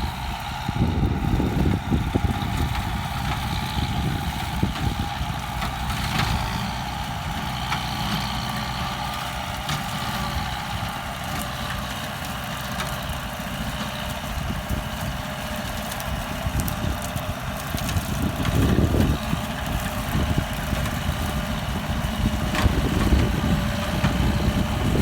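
Kubota M9540 tractor's diesel engine running steadily, growing louder about 18 seconds in and again near the end.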